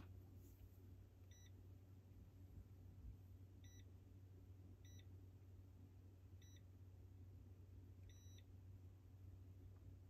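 Faint electronic button beeps: five short beeps one to two seconds apart, the first and last a little longer, over a low steady hum.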